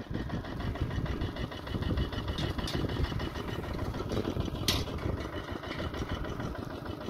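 Engine idling steadily with a low, evenly pulsing rumble, and a sharp knock about two-thirds of the way through.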